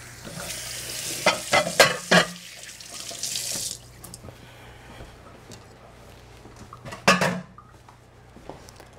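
Kitchen faucet running into a sink for about three and a half seconds, with a few sharp clatters of something knocked in the sink while it runs. Then it shuts off, and there is a single knock later on.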